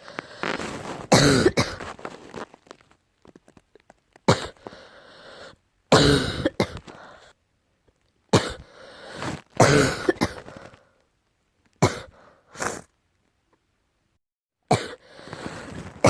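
Deep coughing, in a series of fits of one to three coughs each, separated by short pauses.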